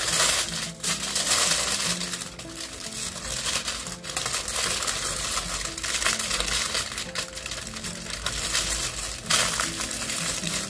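Aluminum foil crinkling and crumpling as it is folded and pressed by hand around a bundle of cut lettuce, with irregular crackles throughout.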